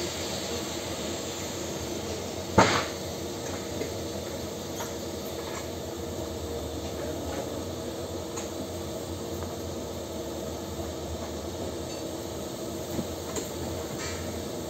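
Steady hiss of a TIG (argon) welding arc on a steel pipe, with one sharp click about two and a half seconds in and a few faint ticks.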